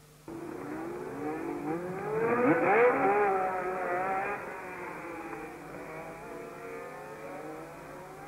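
1970s Formula One car engines at high revs as the cars pass close, the pitch sweeping up and then falling away. It cuts in suddenly, is loudest about two to three seconds in, then fades.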